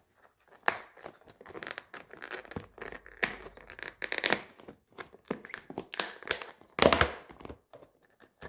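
Clear plastic lid being worked off a black plastic takeout food container: a run of irregular crackles and snaps of stiff plastic, the loudest near the end.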